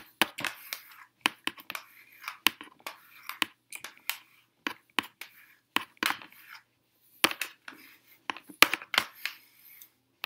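A hairbrush and comb raked through long hair and a flat iron clamped and slid down it: irregular sharp clicks and clacks with scratchy rustling in between.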